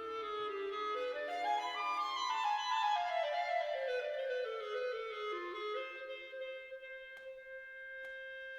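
Instrumental background music: a melody climbs quickly in steps, walks back down, and settles on a long held note.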